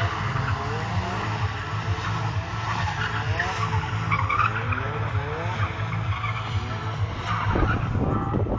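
Drift car sliding with its tyres squealing, engine revving up again and again as the driver holds the slide.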